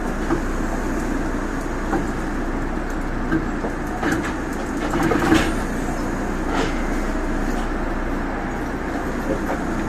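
Steady hum inside a stationary Osaka Monorail car, with a few short knocks and clicks around the middle.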